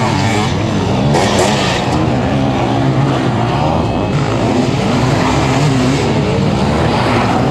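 Several sidecar motocross outfits' engines revving hard, their pitch rising and falling as the crews accelerate and brake through the dirt corners, with a brief hiss about a second in.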